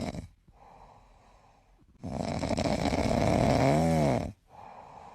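A loud snore: one long noisy breath of about two seconds that ends in a rise and fall in pitch, following a short stretch of near quiet.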